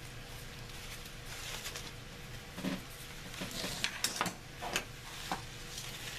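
Ribbon loops rustling in the hands as a knot is pulled tight and the bundle is turned over. Soft rustling with a few small sharp clicks and taps, starting about two and a half seconds in.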